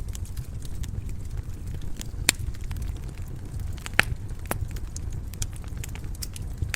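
Wood fire burning in a stone fireplace: a steady low rumble of flames with scattered crackles and sharp pops, the loudest about two and four seconds in.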